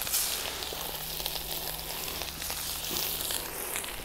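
Seasoned perch fillets frying in a hot pan of butter over campfire coals: a steady hissing sizzle with many small crackles.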